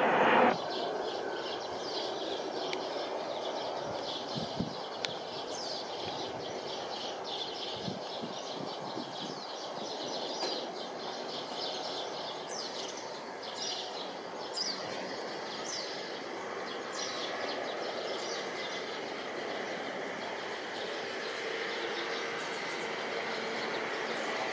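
An Embraer regional jet's engine noise, loud for the first half-second, then cuts off abruptly. After that a steady outdoor background hiss, with many short high chirps of small birds scattered through the middle.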